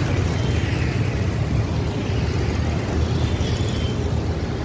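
Steady rumble of street traffic, with motor scooters and auto-rickshaws passing on the road.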